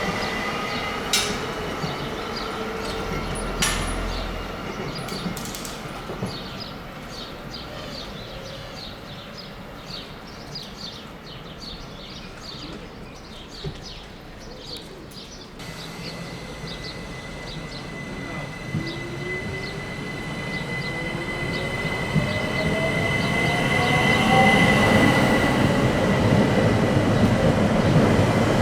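Electric trains at a station: a train fades away over the first half, with its wheels clicking over rail joints. An electric train's motor whine then rises steadily in pitch as it sets off, getting louder, over a steady high whistle.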